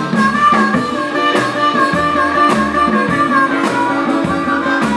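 Live blues band: an amplified harmonica plays a sustained, wavering lead into a vocal microphone over upright bass, a drum kit and a wash-tar (washboard guitar), with a steady beat.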